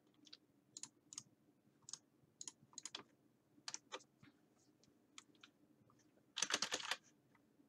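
Computer keyboard keys being tapped: scattered single keystrokes, then a quick flurry of presses about six and a half seconds in.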